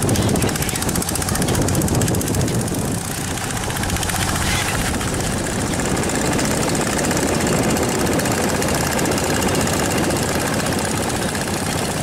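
Long-tail boat engine running steadily at speed, a loud, rapid, even chugging.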